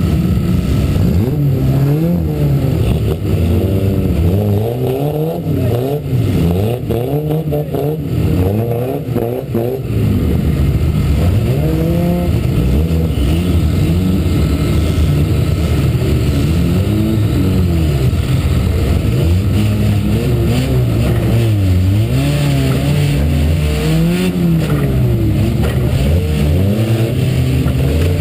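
Race car's engine heard from inside its stripped, caged cabin, revved up and down over and over while the car waits and creeps forward.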